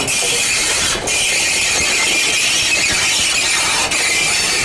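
Class 35 steam locomotive 35 1097-1 passing close by, with a loud, steady, high-pitched hiss and squeal and no exhaust beat.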